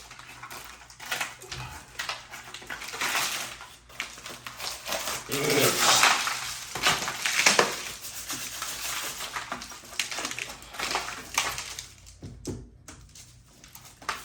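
Hand tools scraping and knocking irregularly against a plaster wall, with a louder run of scraping about five to eight seconds in.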